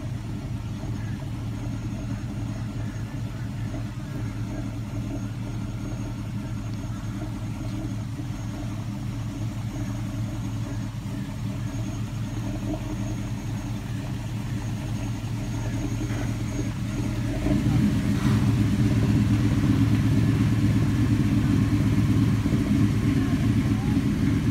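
Square-body Chevy pickup's engine running steadily at low speed as it reverses a boat trailer down a launch ramp. About 17 seconds in, the engine sound gets clearly louder and stays that way.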